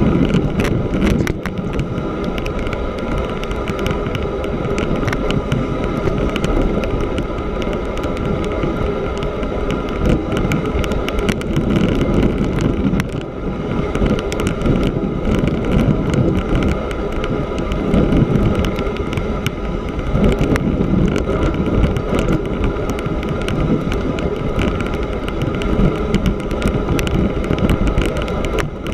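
Bicycle riding over snow on a frozen lake: the steady rolling noise of the knobby tyres on the snow, with wind noise on the microphone.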